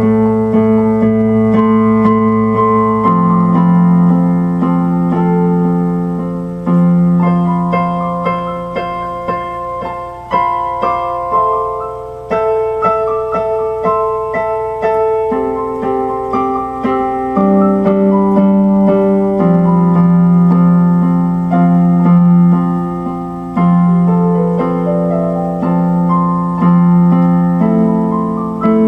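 Electronic keyboard played solo in a piano voice: slow chords struck and left to ring, with a melody moving over them.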